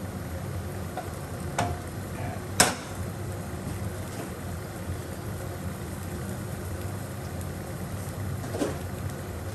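Steady low hum from kitchen appliances, with two sharp clicks near the start, the second one louder.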